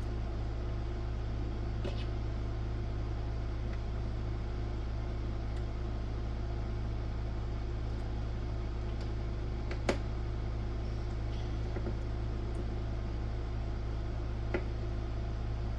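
Steady low electrical hum with a faint higher tone, unchanging throughout, with a few faint clicks of small parts being handled, the sharpest about ten seconds in.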